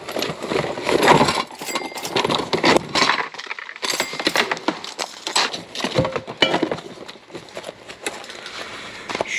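Hands rummaging through a plastic storage bin of mixed belongings: rustling and shuffling, with many short clinks and knocks of hard objects, glass among them, against each other and the bin.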